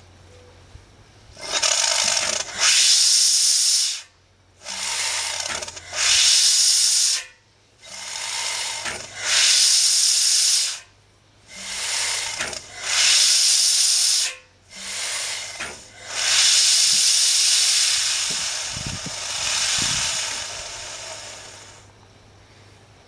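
Steam engine running slowly, its steam exhausting in loud hissing puffs: about ten of them, each a second or so long and coming loosely in pairs, the last one longer and trailing off.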